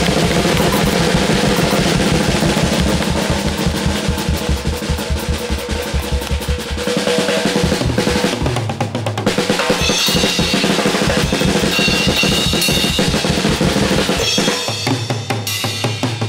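Drums beaten with sticks in a fast, dense, continuous roll of strokes. Higher ringing tones join in from about ten seconds in.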